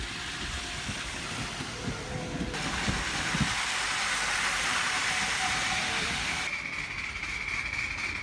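Ride-on miniature railway trains passing close on raised track: a few wheel clicks over the rail joints and a steady hiss that swells to its loudest as the Class 37-outline locomotive and its riding car go by mid-way, then eases, leaving a steady high whine.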